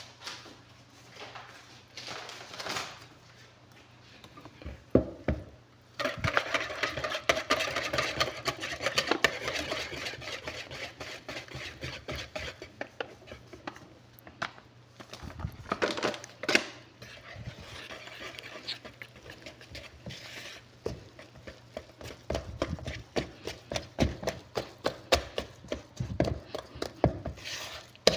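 A bag crackling and rustling as all-purpose flour is poured from it into a plastic mixing bowl, starting about six seconds in. Near the end come quick repeated scraping knocks as the flour is stirred into the wet dough mixture with a whisk and hand.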